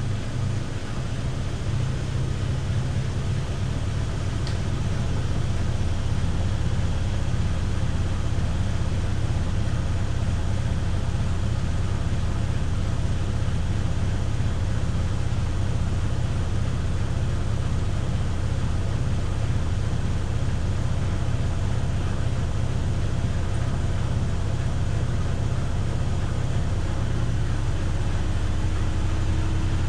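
Miele PW6055 professional washing machine in its final spin, the drum turning at high speed with a steady low hum and whir. The hum steps up a little about six seconds in, and a faint rising whine creeps in near the end.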